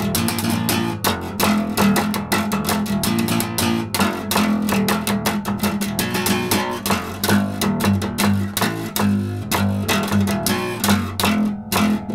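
Acoustic bass guitar plucked by hand, playing a riff of low notes one after another.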